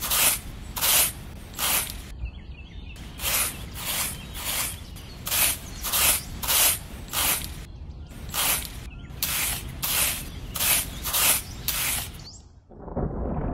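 Small metal hoe blade scraping and chopping through sand in quick rhythmic strokes, about three a second, with two brief pauses. Near the end the scraping stops and a low rumble of thunder sets in.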